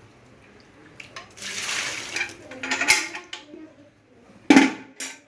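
Metal dishes and utensils clattering and knocking irregularly, with the loudest knock about four and a half seconds in.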